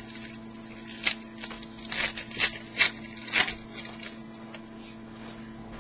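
A trading-card pack being torn open and its cards handled: a string of short crinkles and rips over the first three and a half seconds, then only a low steady electrical hum.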